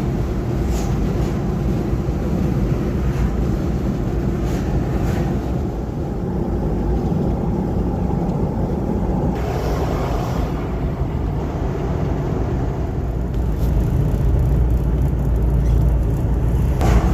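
Steady noise of a moving car: road and wind noise, heaviest in the deep bass, growing slightly louder near the end.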